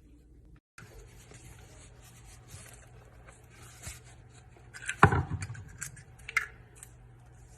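Kitchen handling sounds: light scraping and rubbing, then one loud knock about five seconds in, followed by a few smaller clicks.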